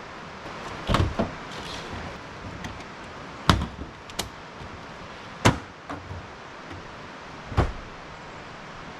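About half a dozen sharp knocks and thumps, a second or two apart, from camping gear being handled and packed while camp is taken down, over a steady background hiss.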